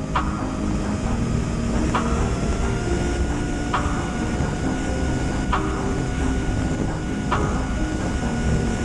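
Onboard sound of a small cardboard RC plane in flight: steady wind rush over the airframe with the whine of its 2205 brushless motor and three-blade prop, the whine rising slightly early on. A faint tick comes about every two seconds.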